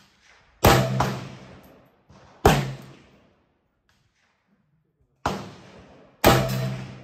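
Arsenal SAM7R AK-pattern rifle in 7.62×39 fired in slow single shots: four loud reports one to three seconds apart, each with a fading tail, and a fainter crack just after the first.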